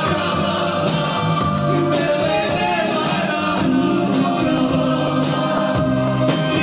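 A man singing into a handheld microphone over loud, steady amplified music.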